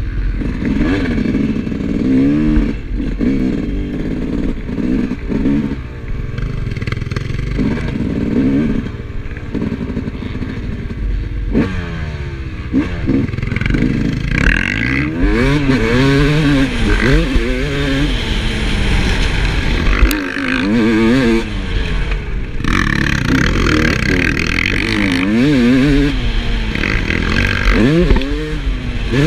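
2007 Yamaha YZ250's two-stroke single-cylinder engine being ridden hard, its pitch repeatedly rising and falling with throttle and gear changes, over a steady rushing noise with clatter.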